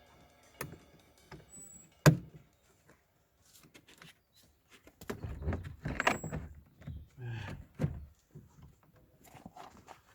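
Car door handle parts being hooked and fitted into an Audi A2 door: one sharp click about two seconds in, then stretches of scraping and knocking of plastic and metal parts.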